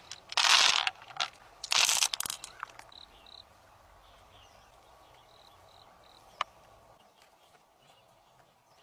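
Two loud rustling, crunching bursts of handling noise in the first two seconds, then a quiet outdoor background with a few faint short high chirps and a single sharp click about six and a half seconds in.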